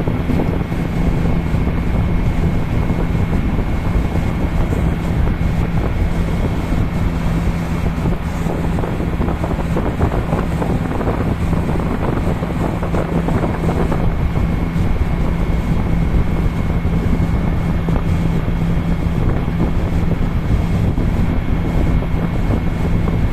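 A ship's engine running with a steady low drone, under heavy wind noise on the microphone.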